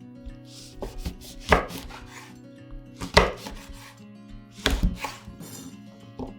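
Knife cutting fresh red chillies on a cutting board: several separate, uneven chops, the sharpest about one and a half, three and nearly five seconds in, over faint background music.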